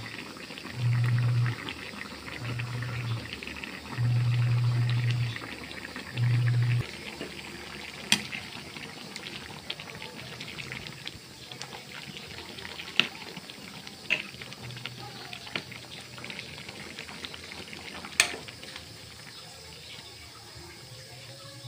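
Pot of misua noodle soup simmering and bubbling, stirred with a metal ladle, with a few sharp clicks as the ladle strikes the pot. A loud low hum comes and goes several times in the first seven seconds.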